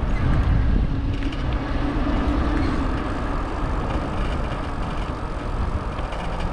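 Steady wind rushing over the microphone of a camera riding on a moving bicycle, mixed with road traffic noise. A faint low hum runs from about half a second to three seconds in.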